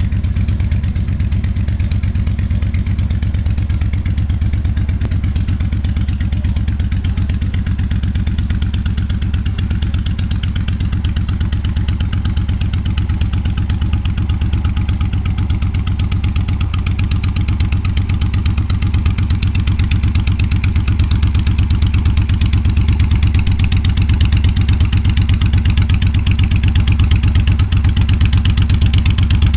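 1400 cruiser motorcycle's engine running through Cobra drag pipes, a steady, rapidly pulsing exhaust note that grows a little louder and brighter about two-thirds of the way through.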